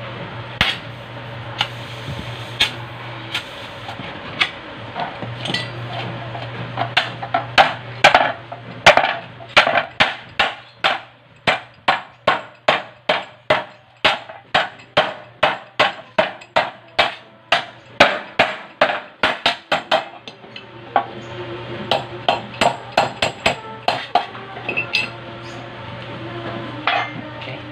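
Hammer beating a sheet-metal plate on a wooden board to fold its edge over. A few scattered metal blows come first, then a fast, even run of about three strikes a second from about seven seconds in to about twenty, then scattered blows again.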